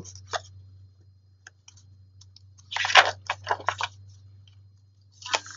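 Decorated paper pages of a ring-bound planner being turned by hand: a burst of crisp paper rustling with a few sharp clicks about three seconds in, and another starting near the end.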